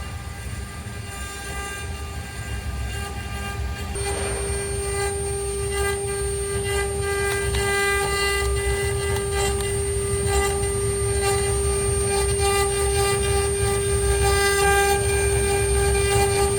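ART1325 CNC router running, its spindle giving a steady whine over the changing tones of the axis drive motors. About four seconds in, the whine becomes suddenly louder and holds steady.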